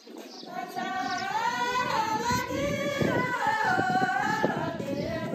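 A high voice singing unaccompanied, a slow melody of long held notes that waver and slide, starting about half a second in.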